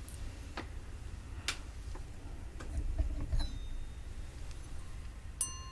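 Light taps and clicks on a crystal glass. About three and a half seconds in, a tap leaves a short high ring. Near the end, a sharper tap sets it ringing like a bell, with several clear tones that linger.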